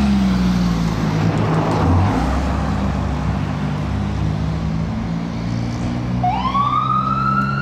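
The Detroit Diesel engine of a 2017 Pierce Enforcer fire engine idling steadily. About six seconds in, the truck's siren starts, quickly rising in pitch as it winds up into a wail.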